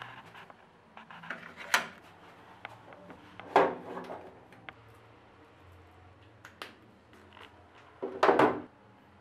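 Toothbrush and plastic toothpaste tube being handled at a plastic bathroom caddy: several short knocks and rubs, with a longer half-second one near the end.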